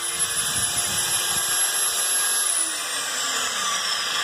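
Small homemade 8-pound power hammer running at high speed: the drive motor's high whine over a steady mechanical clatter. About halfway through, the whine falls away as the motor slows.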